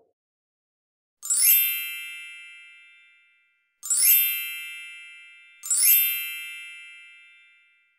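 Three bright, bell-like chime sound effects, each struck sharply and ringing out as it fades over about two seconds.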